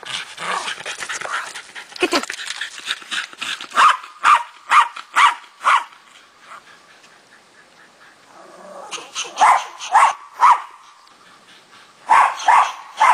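A Welsh terrier barking excitedly, a quick tumble of yaps at first, then sharp barks about two a second in runs of five, three and three, with short pauses between the runs.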